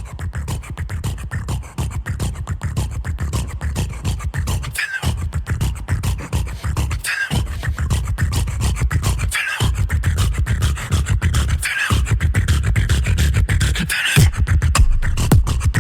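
Beatboxing: fast, dense mouth clicks and snares over a heavy vocal bass line. The beat breaks off briefly about every two and a half seconds.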